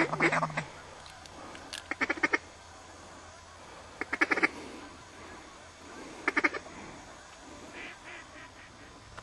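Duck quacking in short runs of quick, clipped notes, about every two seconds, the last run fainter.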